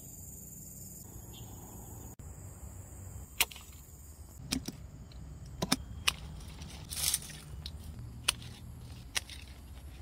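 Hand pruning shears snipping through small tree branches: a string of sharp snaps, irregularly spaced, starting about three seconds in.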